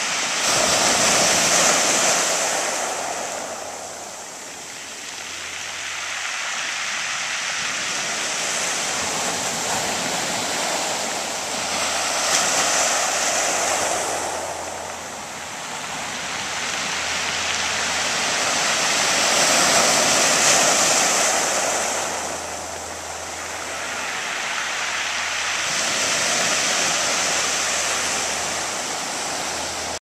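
Small waves breaking on a pebble beach and washing up over the stones, the surf swelling and fading in slow surges every seven or eight seconds with a high hiss of water over pebbles.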